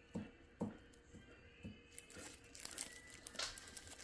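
Faint crinkling of a thin clear plastic sheet being shaken by hand, with a few soft low thumps in the first two seconds and more crackling from about halfway through.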